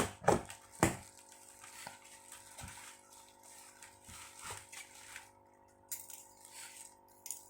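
Bottles and their packaging being handled and unpacked: a few sharp knocks in the first second, then soft rustling and light taps, over a faint steady hum.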